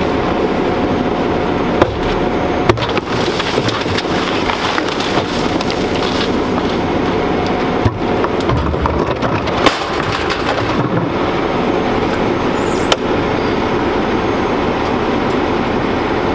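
Garbage truck's diesel engine running steadily, with several sharp knocks as plastic trash cans are banged against the edge of the truck's container while being emptied by hand.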